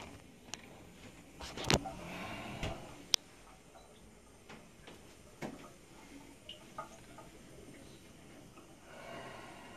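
Handling noise of a handheld camera being moved: faint scattered clicks and knocks over a low steady background hiss.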